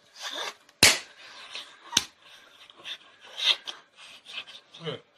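Two sharp smacks about a second apart, the first the louder, with faint rustling and rubbing around them.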